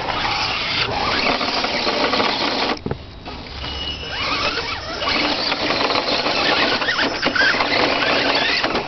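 Electric motor and gear drive of a radio-controlled rock crawler whining steadily as it crawls over rocks, easing off briefly about three seconds in.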